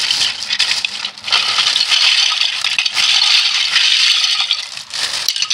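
Thin plastic bag crinkling as it is opened and emptied, and a heap of hollow plastic Lego Duplo bricks clattering and rattling against one another as they pour out.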